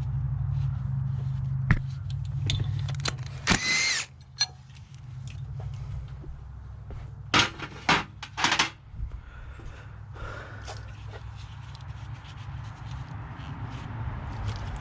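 Hand tools and metal parts clicking and clanking while a small bracket is worked loose in a van's engine bay, with several louder clanks, over a steady low hum.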